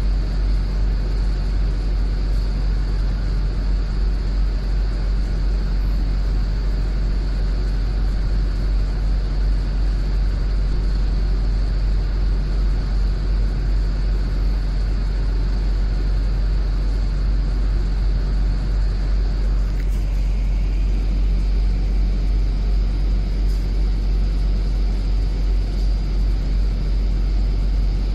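Inside a London double-decker bus on the move: a steady low rumble of the bus's drivetrain and road noise, with a faint steady high whine. About two thirds of the way in, a new faint whine starts and climbs a little.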